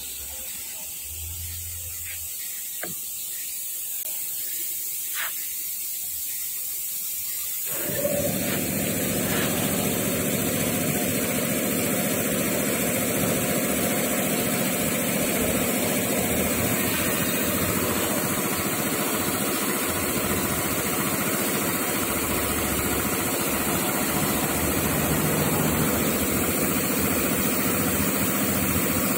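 A faint hiss with a few light clicks, then a steady engine or motor noise that starts abruptly about eight seconds in and runs on evenly.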